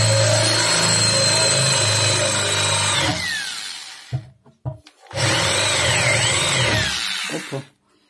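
Electric drill with a 7 mm bit drilling out the rivets that hold a washing machine drum's flange. It runs steadily for about three seconds and winds down, then starts again about two seconds later, its speed rising and falling, and winds down near the end.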